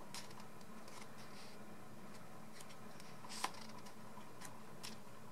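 Quiet handling of a photobook: a page being turned, with a few soft paper clicks, the clearest a little past two-thirds of the way through, over a faint steady room hum.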